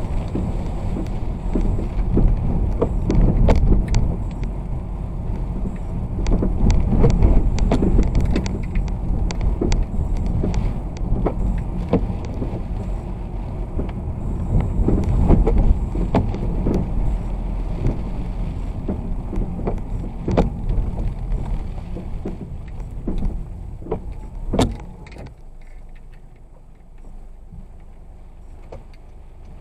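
A vehicle driving on a wet road: steady low rumble of engine and tyres with many sharp scattered taps, easing to a quieter hum in the last few seconds.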